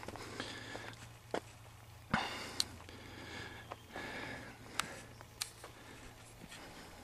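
A person's breathing and sniffing, with scattered scuffs and clicks and one sharper knock about two seconds in.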